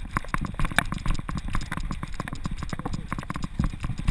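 Dense, irregular knocking and rattling from a camera strapped to a running American Staffordshire Terrier's back: the dog's footfalls on the dirt trail and the jostling of the mount, several thuds a second.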